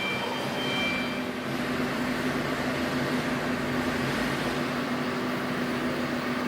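Large Ricardo diesel generator set (1000 kW) running at a steady speed, giving a continuous hum with a low, even drone.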